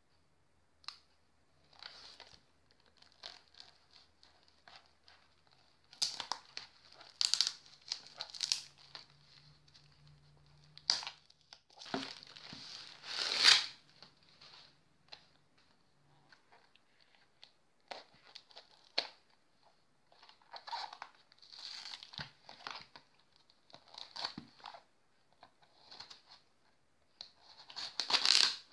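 Plastic parcel wrap and packing tape being torn and peeled off a cardboard box by hand, the plastic crinkling in irregular bursts with a few sharp clicks. The loudest tears come about halfway through and near the end.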